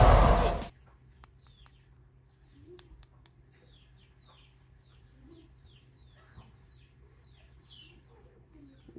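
Loud music cuts off under a second in, then chickens are heard faintly: repeated short, falling chick peeps with a few low soft hen clucks among them.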